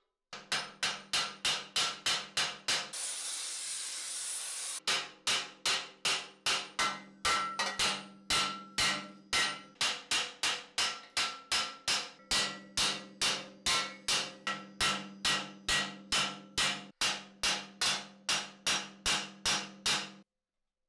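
Hand hammer beating a red-hot steel cuirass plate over an anvil stake and anvil horn: a steady run of ringing metal-on-metal blows, about two to three a second. About three seconds in, the blows give way for under two seconds to a steady high hiss.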